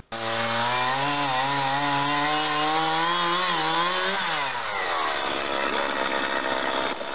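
Chainsaw engine running at high revs, its pitch creeping up, then dropping about four seconds in and running on at lower revs with a rougher sound.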